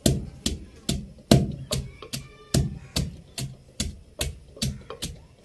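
Wooden pestle pounding ginger and garlic into paste in a mortar: a steady run of thuds, about two and a half strokes a second.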